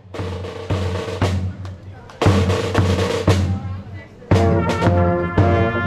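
Marching band playing: snare and bass drums beat a steady rhythm, brass comes in a little after two seconds, and the full brass section with a marching tuba plays from a little after four seconds.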